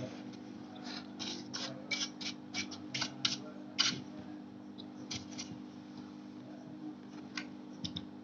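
Small hard parts being handled: a quick run of short clicks and scrapes for a few seconds, then a few scattered clicks, over a faint steady hum.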